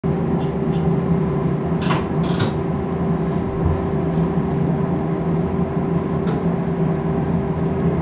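Steady hum and running noise inside the front of a Shin-Keisei 8800 series electric train as it moves slowly along a station platform, with two sharp clicks about two seconds in.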